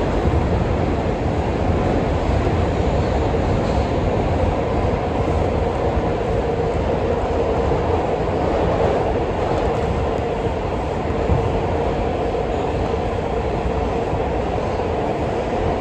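R142 subway car running steadily between stations on the 4 express, heard from inside the car: an even rumble of wheels on rail with a strong mid-pitched hum, with no braking or squeal.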